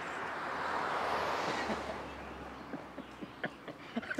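A passing vehicle: a steady rush of road noise with a low rumble that swells to a peak about a second and a half in, then fades away. A few faint ticks follow near the end.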